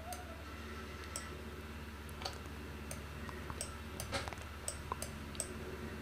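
About ten faint, irregular clicks from a computer's input controls as a trading chart is scrolled back, over a low steady hum.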